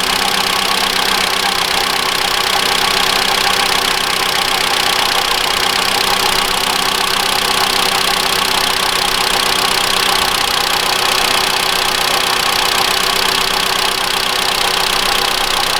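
Mitsubishi ASX 1.8-litre petrol engine running steadily at a fast cold idle, the accessory belt turning a newly fitted alternator pulley. There is no knocking from the pulley: the fault, a slipping overrunning alternator pulley, is cured.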